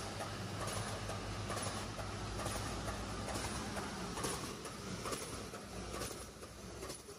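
Zipper bag making machine running, its cycle knocking about once a second over a steady low hum.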